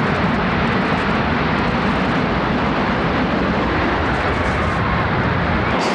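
Loud, steady rumbling roar of a World Trade Center tower collapsing, a dense unbroken rumble heavy in the low end.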